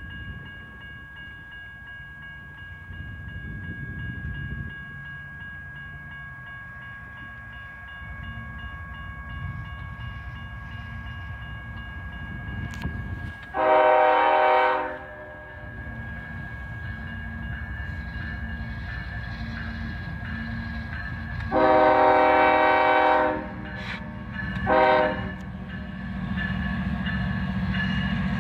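Approaching diesel locomotive's multi-chime air horn sounding the grade-crossing signal: two long blasts, a short one, and the start of a final long one, over the steady engine rumble that builds as the train nears.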